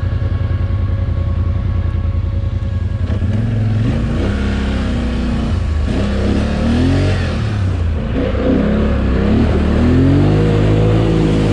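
ATV engine idling with a steady low pulse, then from about three seconds in revving up and down repeatedly as the quad pulls away down a muddy trail.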